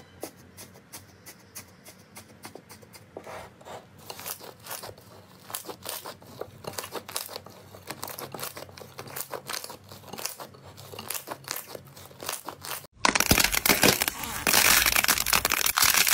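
Hands pressing and kneading crunchy textured slime, giving a run of small crackles and pops. About thirteen seconds in it changes to a much louder, denser crackling as another fluffy slime is squeezed in the hands.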